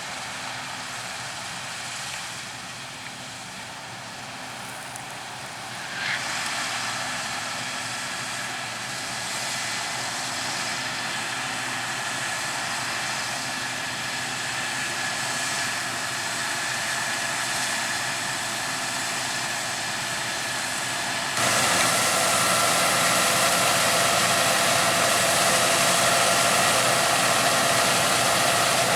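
Harvest machinery, combine harvesters or grain-carting tractors, running steadily with a whine in it; the sound rises about six seconds in and jumps suddenly louder about two-thirds of the way through.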